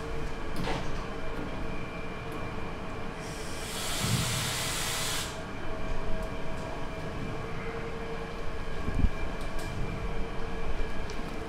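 Steady hum of kitchen machinery, with steam hissing from a stainless-steel sausage steamer for about two seconds a few seconds in, and a dull thump later on.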